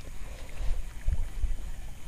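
Low, uneven rumble of wind buffeting the microphone, swelling about halfway through, with a few faint ticks above it.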